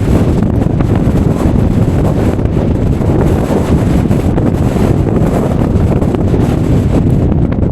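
Strong storm wind buffeting the microphone: a loud, unsteady rumble, heaviest in the low end.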